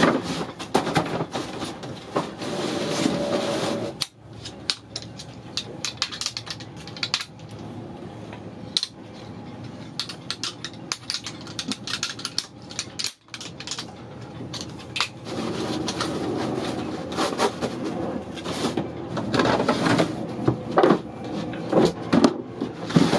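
Irregular clattering and knocking as loose gear is handled and set down: metal fittings, plastic and cardboard boxes, with rustling between the knocks. It is busiest at the start and again over the last several seconds.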